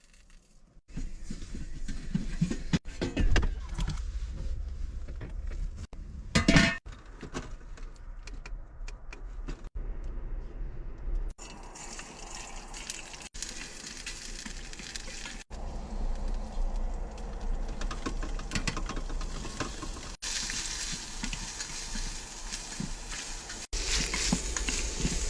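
Food frying in a pan, with knocks and clatter of utensils and cookware; from about halfway a steady sizzling hiss. The sound jumps at several edit cuts.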